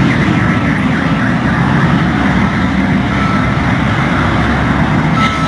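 A semi-trailer truck and other vehicles roll slowly through a toll lane close by, with a steady low engine rumble. A short, thin beep repeats every couple of seconds.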